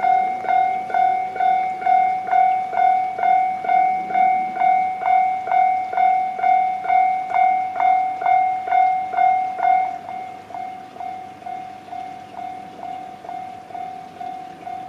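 Japanese railway level-crossing alarm sounding its electronic 'kan-kan' bell tone, a little over two strikes a second. About two-thirds of the way through it suddenly turns quieter and keeps ringing at the same pace.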